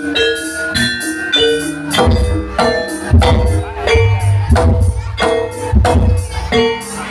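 Jaranan gamelan music: struck metal keys and gongs play a repeating pattern of ringing notes, and deep drumming joins about two seconds in and drops out again about six seconds in.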